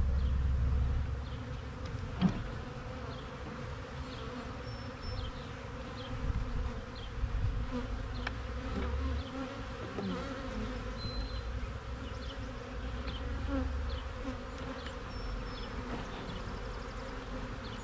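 Honeybees buzzing over an open, crowded hive, a steady hum, with a few sharp clicks as a metal hive tool pries at the wooden frames.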